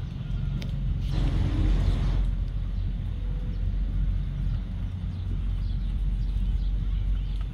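Steady low outdoor rumble, with a brief hiss of noise about a second in that lasts about a second.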